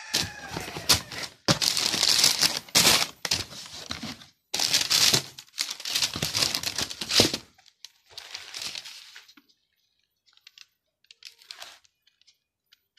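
Packing paper and wrapping inside a cardboard shoe box crumpling and crinkling as it is handled, in several loud bursts over about seven seconds. It then turns to fainter rustles and a few light ticks as the shoe is lifted out.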